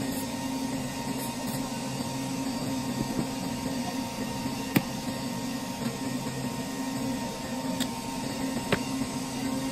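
Steady machine hum, with two sharp clicks as a circuit board is handled on the bench: a louder one about halfway through and a smaller one near the end.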